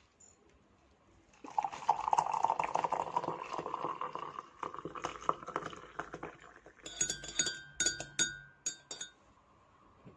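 Liquid poured into a glass, the pitch of the pour rising slowly as it fills, followed by a few sharp, ringing clinks of glass.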